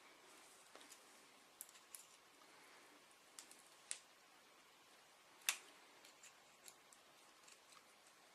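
Faint scattered clicks and ticks of a steel paperclip wire being bent and twisted by hand, with one louder click about five and a half seconds in.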